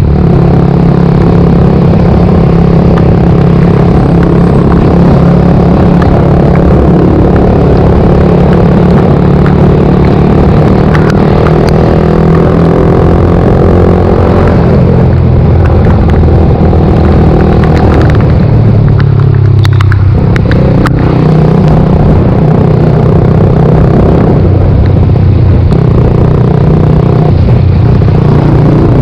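Suzuki GSX-R125's single-cylinder four-stroke engine running under way, its note fairly steady. About eighteen seconds in the pitch falls away as the bike slows, then the engine picks up again.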